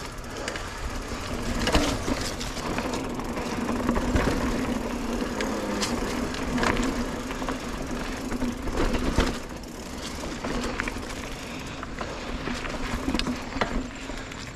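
Mountain bike riding down a dirt trail: tyres rolling over dirt and roots, with repeated knocks and rattles from the bike over bumps and a steady hum through most of the ride.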